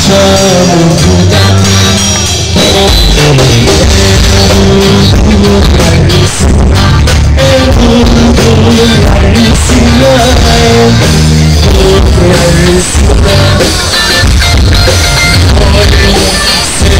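Live band playing loud amplified music through PA speakers: drum kit, electric guitar and a sung lead vocal, with no breaks.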